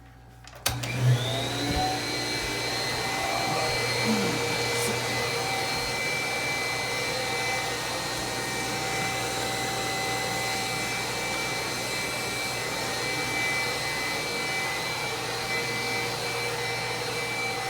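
Old vacuum cleaner switched on about a second in, its motor whine rising as it spins up and then running steadily.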